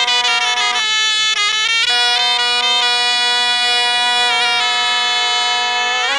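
Folk music on reed wind instruments, bagpipe-like and nasal. A melody moves over held notes, with a short gliding passage about a second in, and the playing breaks off abruptly at the very end.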